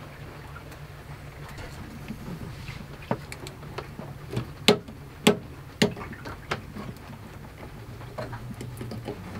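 Scattered clicks and light taps of wires and a cable being handled and fed into an inverter/charger's wiring terminals, with three sharper clicks about halfway through, over a steady low hum.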